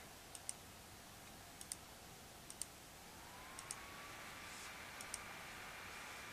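Faint computer mouse clicks: five quick pairs of clicks, roughly one pair a second. A faint steady whine, rising slightly in pitch, comes in about halfway.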